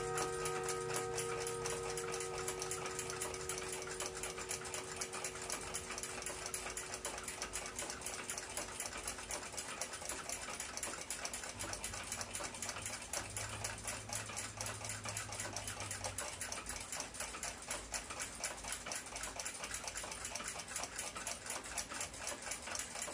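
Fast, steady mechanical ticking. A few ringing tones die away over the first few seconds.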